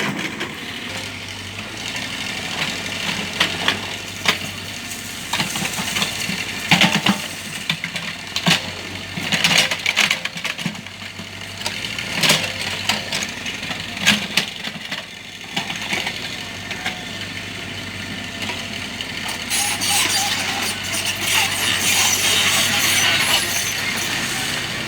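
Mini excavator working: its engine runs steadily under a stream of sharp clanks and rattles. A hissing, scraping noise builds in about two-thirds of the way through.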